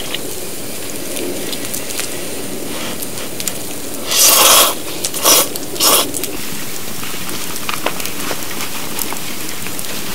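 A person slurping udon noodles from a metal bowl, three loud slurps in quick succession around the middle, over a steady wood fire crackling and popping.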